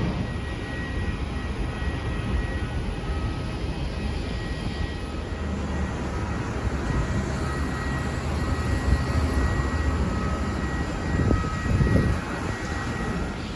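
Jet airliner engines running: a steady low rumble with a thin high whine on top, swelling briefly near the end.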